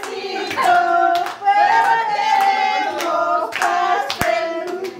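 A small group singing a birthday song together, clapping along in time at about two claps a second, with one sharp knock about four seconds in.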